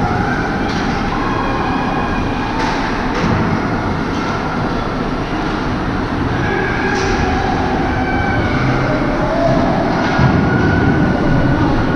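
Steady, echoing ice-rink din during a youth hockey game: a constant rumble with wavering calls over it.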